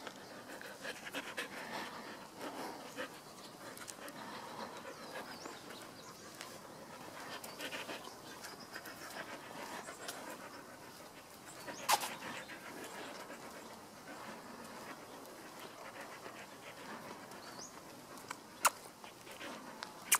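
Australian Shepherd panting, with quick, breathy, uneven breaths. Two short sharp clicks stand out, one about halfway through and one near the end.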